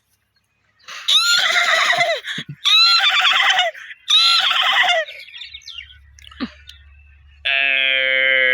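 A man mimicking a horse's whinny with his voice: three loud calls about a second each, each opening with a quick pitch sweep. Near the end a steady held tone with a low hum comes in.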